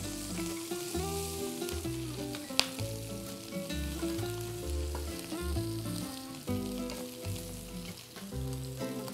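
Shrimp sizzling in a hot grill pan as they are lifted out with metal tongs, with one sharp click of the tongs about two and a half seconds in. Background music with a steady bass line plays underneath.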